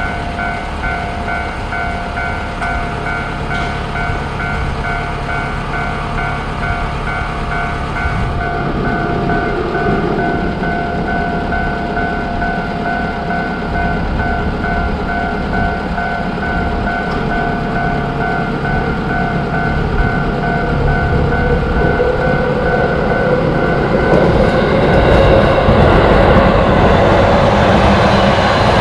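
Railway level-crossing alarm ringing in a rapid, even repeating pattern while a train approaches and runs past. The train's rumble grows louder over the last several seconds, and the ringing stops about 24 seconds in.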